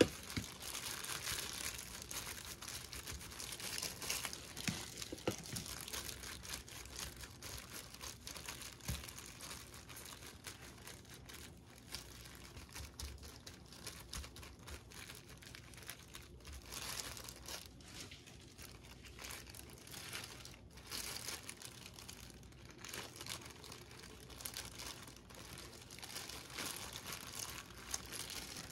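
Continuous crinkling and rustling of thin plastic disposable gloves as the hands press and spread cooked rice over a dry sheet of gim (laver seaweed), with many small crackles.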